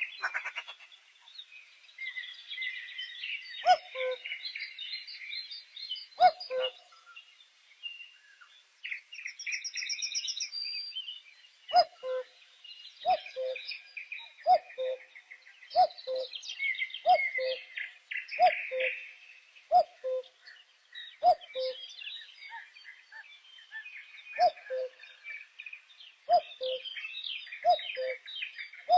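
Several small birds chirping and twittering at once in a dense, high-pitched chorus. A lower, short two-note call repeats twice early on, then about once a second from around the middle onward.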